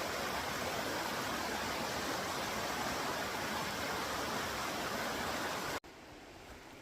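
Waterfall rushing, a steady dense hiss of falling water; about six seconds in it cuts off abruptly to a much quieter flow of water.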